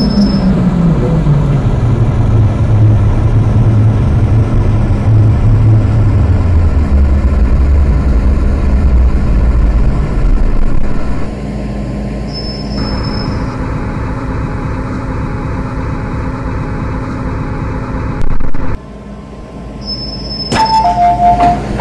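MTR M-Train electric multiple unit slowing to a stop, its traction motor whine falling steadily in pitch over about ten seconds, then standing with a steady hiss and hum. Near the end the alternating two-tone door-closing chime starts beeping.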